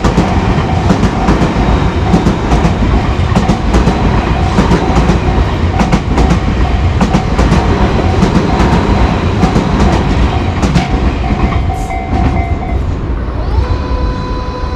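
Tobu Tojo Line electric train passing over a level crossing, its wheels clattering over the rail joints while the crossing's warning bell rings in a fast repeating tone. The bell stops near the end, and a whine rises and then holds steady.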